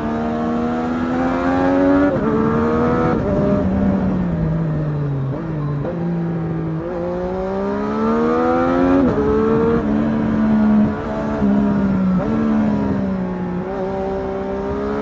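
Multi-cylinder motorcycle engine accelerating hard through the gears. Its pitch climbs, then drops sharply at each upshift, with a stretch of slowing down about four seconds in before it pulls again.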